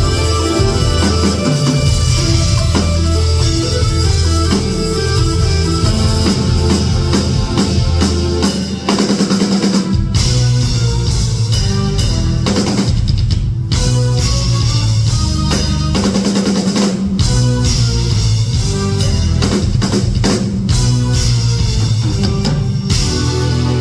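Live instrumental rock jam: electric guitar playing over a full drum kit with heavy bass drum, loud and unbroken.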